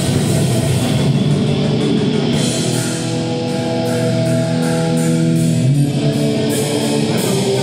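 A live punk band plays loudly: electric guitars hold long chords over regular drum and cymbal hits, with no vocals in this passage.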